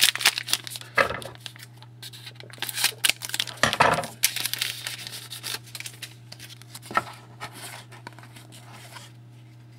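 A foil trading-card pack wrapper being torn and crinkled, with cards handled in irregular bursts of rustling and tearing.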